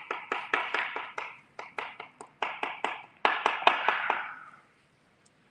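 Kitchen knife chopping on a cutting board in quick, uneven strokes, about three or four a second, with the chopping stopping about four and a half seconds in.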